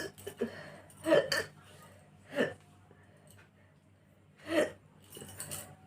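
A woman's short throat sounds as she strains to bring up burps after drinking carbonated cola: several brief bursts a second or two apart, three of them louder. She feels the burp stuck near her throat, not coming out fully.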